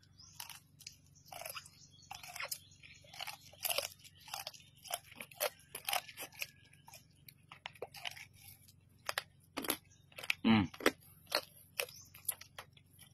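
Wet chewing of raw tokay gecko, its small bones crunching between the teeth in irregular crunches. One short, louder vocal sound from the eater about ten and a half seconds in.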